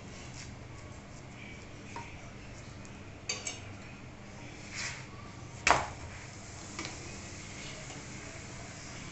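Kitchen utensils clinking and knocking against a tawa while a paratha is cooked and turned: a few light clinks, with one sharper knock a little past halfway, over a low steady hum.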